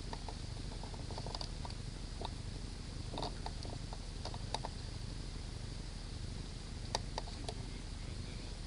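Faint scattered clicks and small rustles, a few louder ticks about three and seven seconds in, over a steady low rumble.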